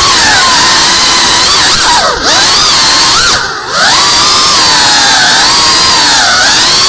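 Small FPV quadcopter's electric motors and propellers whining in flight, the pitch rising and falling with the throttle. The whine drops sharply twice, about two seconds in and again about three and a half seconds in, as the throttle is cut briefly.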